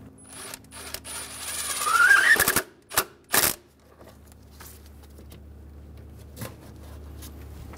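Milwaukee cordless power tool driving the hose clamp screw on the throttle body: the motor whirs for about two seconds, its pitch rising near the end as it stops. Two sharp clicks follow about a second later.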